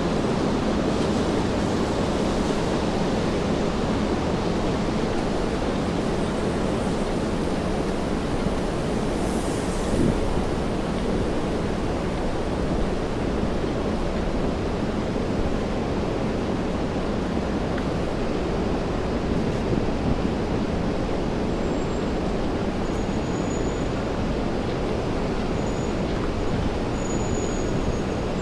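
Steady rainfall over a wet city street with a constant low traffic hum, and a brief high hiss about nine seconds in.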